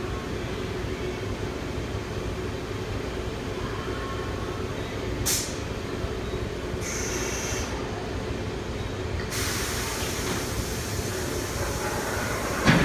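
Vacuum-forming thermoformer running a forming cycle: a steady machine hum, with a short sharp hiss of air about five seconds in. A rushing hiss sets in from about nine seconds, and a loud sharp burst of air comes near the end.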